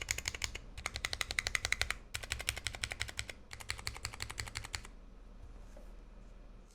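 Fast typing on a 60% mechanical keyboard with vintage brown Alps switches lubed with PTFE, on a brass plate with PBT keycaps: rapid keystroke clicks in bursts with short pauses. The typing stops about five seconds in.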